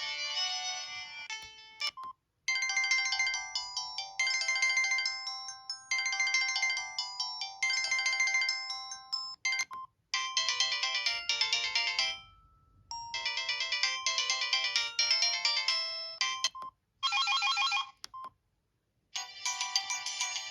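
A Samsung SGH-E350 mobile phone playing a series of downloaded melodic ringtones, each cut off after a few seconds and followed by a brief silence before the next starts. One short phrase repeats several times before a new tone begins. The sound is thin, with no bass.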